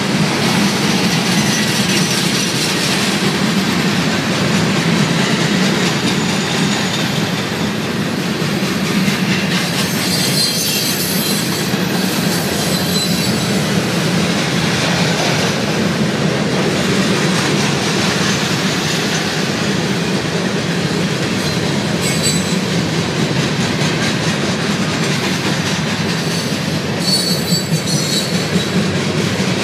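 Gondola cars of a CSX freight train rolling past close by: a steady, loud wheel-on-rail noise, with short high-pitched wheel squeals about a third of the way in, again about two-thirds in, and near the end.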